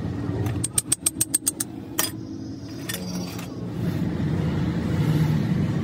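A quick run of about eight light metallic clicks, then two single sharper clicks, as steel hydraulic jack parts are handled, over a steady low rumble of road traffic.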